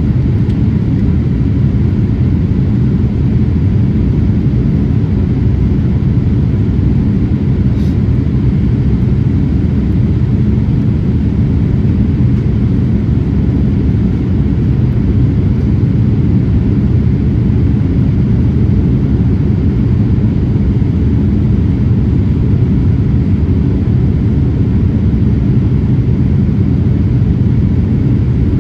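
Steady low rumble of engine and airflow noise inside the cabin of a Boeing 787-8 in flight, with a faint click about eight seconds in.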